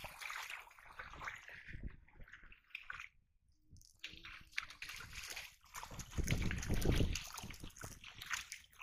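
Fish thrashing in a net in shallow water, irregular sloshing and splashing. It drops almost silent for about a second around three seconds in, and the splashing is loudest a couple of seconds later.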